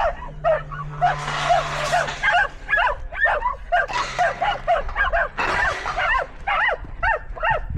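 Several excited dogs whining and yipping over and over in short, high-pitched cries, eager to be let out.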